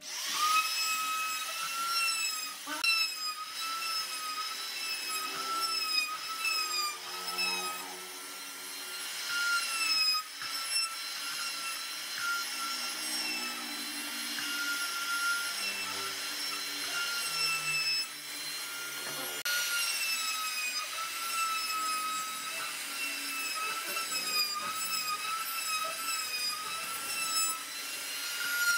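Compact trim router running and cutting wood, a steady high whine that wavers slightly in pitch as the bit bites into the wood.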